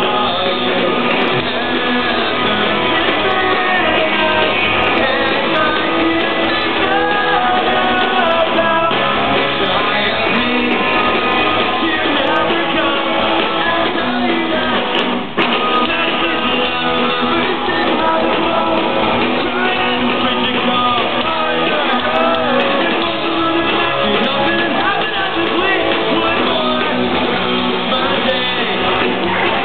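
Live punk rock band playing a song: a singer over loud electric guitars, bass and drums, heard from the crowd through a camera microphone. The sound dips briefly about halfway through.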